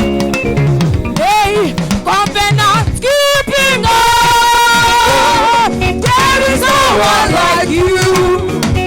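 Live gospel praise-and-worship music: a solo voice sings with vibrato over band accompaniment, holding one long note about four seconds in.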